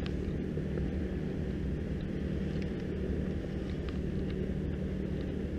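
Steady low drone of a passing cargo ship's diesel engine, an unchanging hum, with a few faint ticks over it.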